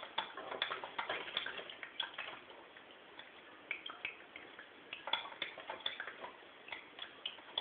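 Combination espresso and drip coffee machine brewing, with faint, irregularly spaced clicks, ticks and drips. The ticking comes in clusters, thinning out around the middle and picking up again after about five seconds.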